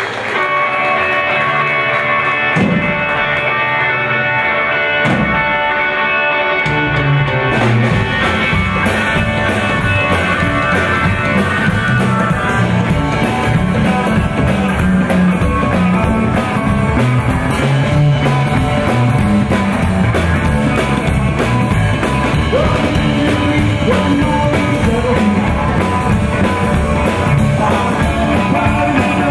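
Live rockabilly band playing: electric guitar, upright double bass and drum kit. The first several seconds are sparser, mostly guitar with a couple of low thumps. The full band with bass and drums comes in about seven seconds in and carries on at a steady beat.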